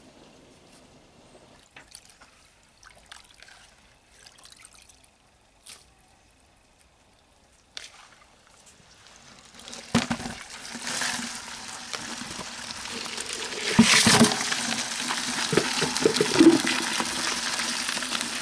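A few faint clicks, then from about halfway in, water rushing and splashing steadily, loudest about 14 s in, stopping abruptly at the end.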